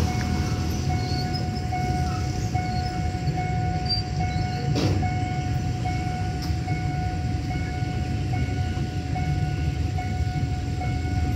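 Railway level-crossing warning bell ringing in a steady repeating chime while the barriers are down, over a low rumble. A single sharp clank about five seconds in.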